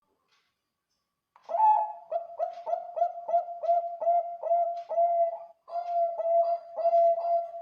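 Zebra dove (Bangkok perkutut) cooing: a quick run of short, clipped coos at one steady pitch, about two and a half a second, starting about a second and a half in, with a brief break near the middle.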